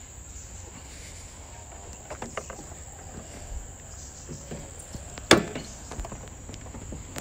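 Small metal clicks and then one sharp clunk about five seconds in as a pickup truck's bonnet catch is released and the bonnet is lifted, over a steady high-pitched insect drone.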